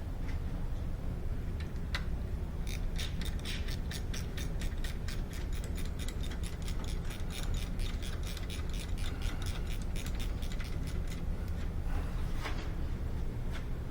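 Ratchet wrench clicking in a fast, even run, about four or five clicks a second, for around eight seconds, as a brake caliper slider pin is driven in.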